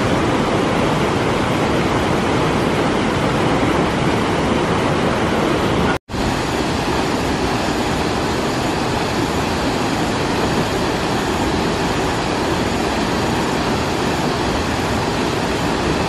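River water rushing steadily over a small waterfall into a rocky pool, a loud even rush. The sound cuts out completely for a split second about six seconds in.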